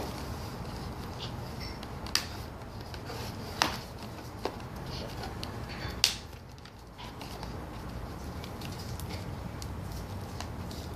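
Hands handling a doll in its cardboard packaging box, with four sharp clicks or snaps, the loudest about six seconds in, over a steady low hum.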